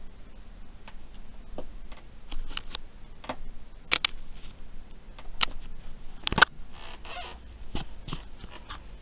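Scattered sharp clicks, taps and rustles at uneven intervals: handling noise from a handheld camera being moved about. The loudest click comes about six seconds in, followed by a short rustle.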